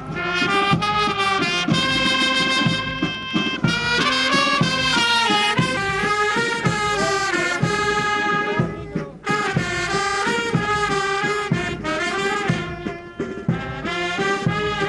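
Brass band music with held, melodic horn notes over a regular drum beat.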